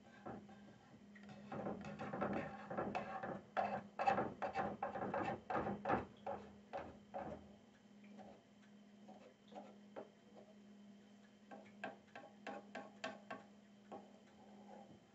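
A metal fork clicking and scraping against a frying pan in quick, irregular taps, busiest in the first half and sparser after, over a steady low hum.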